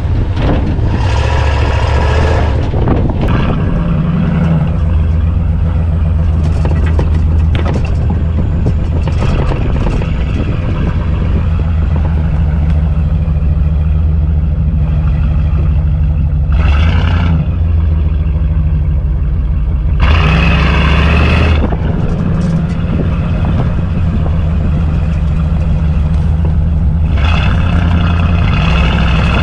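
Truck engine and exhaust running loud and low, swelling into louder bursts of revving a few times, as in off-road driving.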